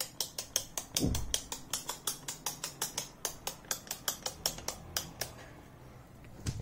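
Rapid, even clicking from a plug in a wall socket, about five or six clicks a second, stopping about five seconds in, with one more click near the end.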